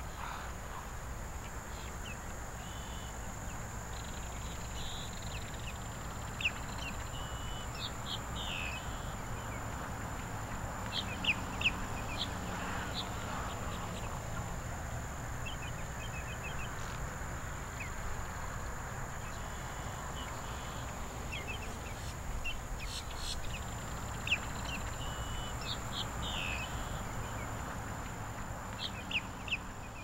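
Wetland ambience with scattered short bird chirps and calls over a low steady rumble, and a thin, steady high-pitched whine.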